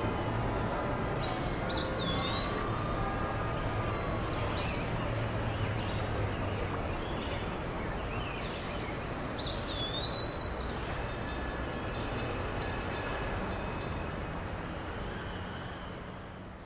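Steady rumbling ambient noise with a few short high chirping squeals, fading out near the end.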